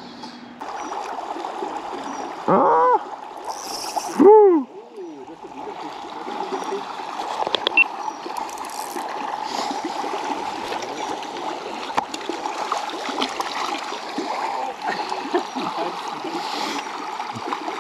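Shallow river running steadily over stones, a constant rushing wash of water. A person gives two short exclamations about two and a half and four seconds in.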